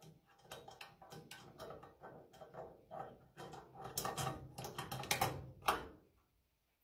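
Plastic lamp holder and its screws being handled and fitted against a ceiling junction box: a run of small irregular clicks and rattles, busiest about four to five and a half seconds in, fading near the end.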